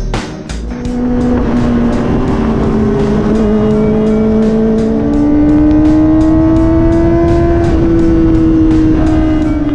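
Kawasaki ZX-4RR's inline-four engine pulling hard under acceleration, its pitch climbing in long rises and stepping at a few shifts, with music playing faintly underneath.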